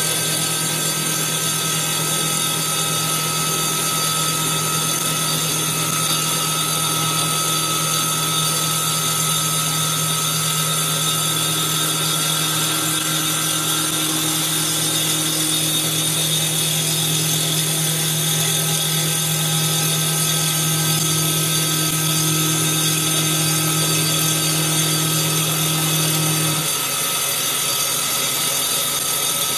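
CNC wood lathe cutting a baseball bat blank with a spinning saw blade instead of carbide cutters: a steady motor hum and whine under a dense hiss of wood being cut away. Near the end the low hum stops while the high cutting noise carries on.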